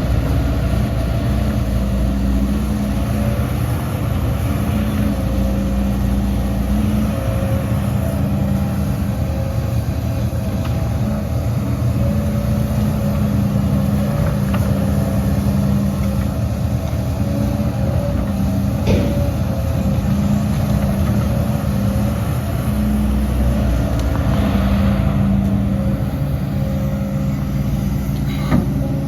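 Heavy diesel earthmoving machinery running steadily, with one sharp metallic knock about two-thirds of the way through.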